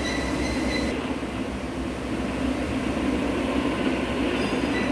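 Overhead crane hoist running as it lowers a heavy steel ring on a sling: a steady low mechanical rumble and hum, with a faint high whine near the start and again near the end.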